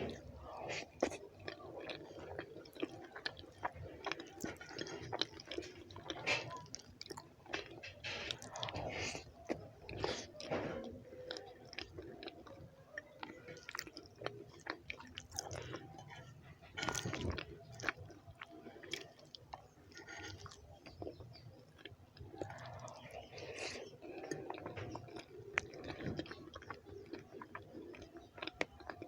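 A person chewing a mouthful of rice and beans, with many short, sharp, irregular wet mouth clicks and smacks.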